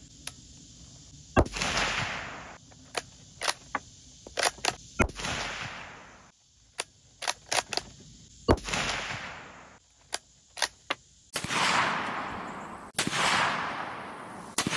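Three shots from a bolt-action Ruger American Ranch rifle in .300 Blackout, about three and a half seconds apart, each followed by a rolling echo. Small clicks come between the shots as the bolt is cycled, and two more echoing reports follow near the end.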